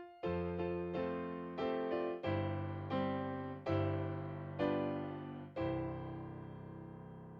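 Piano playing a slow series of chords, each struck and left to ring; the last one, about five and a half seconds in, is held and fades out as the piece ends.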